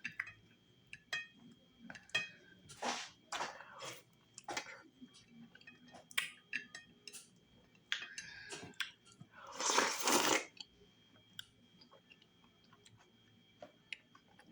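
Close-up eating sounds: a person chewing and smacking on fufu with okra stew, cow skin and tripe, with scattered short wet clicks. A longer, louder wet noise comes about ten seconds in.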